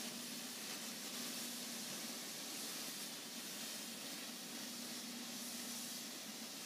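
Vapor steam cleaner's nozzle hissing steadily as it jets hot steam into the grout line of a stone tile floor, with a faint low hum that comes and goes.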